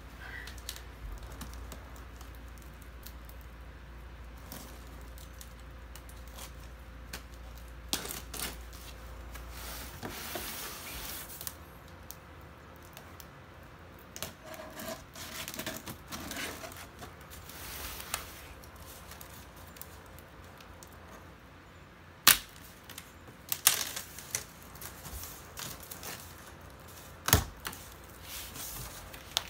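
Packing tape on a corrugated cardboard shipping box being cut and torn along the seam, and the box's flaps being pulled open: scraping and rustling of tape and cardboard, with a few sharp knocks and clicks in the second half.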